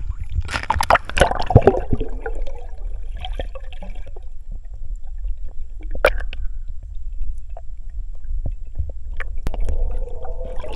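Muffled water gurgling and sloshing picked up by a camera held underwater, over a steady low rumble. A louder splash of bubbling comes about half a second in as it goes under, with scattered small knocks after.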